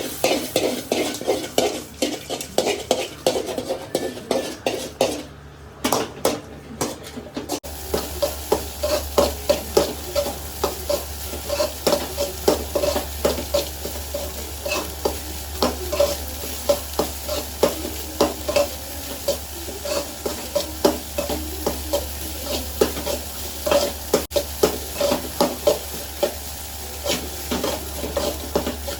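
Fried rice being stirred and tossed in a hot pan: a metal spatula strikes and scrapes the pan in quick, repeated clatters over the sizzle of frying. A low steady hum joins about eight seconds in.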